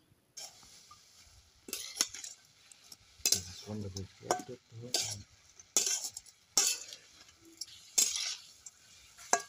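A flat spatula stirring and scraping chopped radish greens mixed with salt around a metal pan, in short separate strokes roughly once a second.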